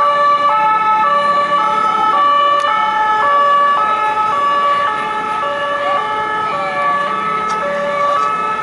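French police two-tone siren ("deux-tons") sounding continuously, switching between a higher and a lower note about every half second.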